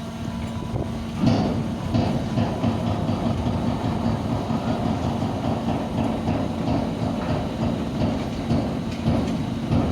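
Ferry's engine running with a steady hum, joined about a second in by a louder, continuous rattling clatter.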